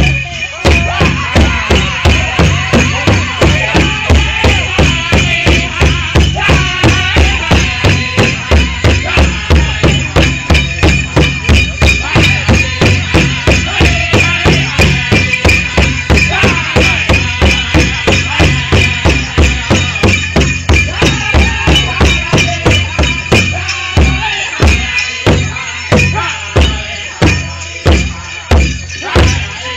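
Powwow drum group beating a big drum in a steady fast beat, about two and a half strikes a second, with singers' voices over it and dancers' bells jingling. From about 24 s in, the strikes stand apart more sharply.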